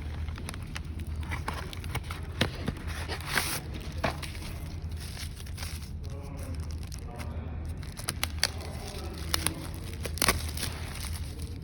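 Phone packaging being unwrapped and handled: plastic crinkling and tearing, with scattered sharp clicks and taps.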